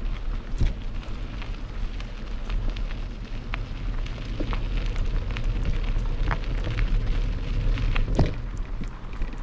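Mountain bike riding along a dirt trail: tyres crackling over gravel and twigs with scattered clicks and rattles, over a steady low wind rumble on the microphone. A sharper knock comes about eight seconds in.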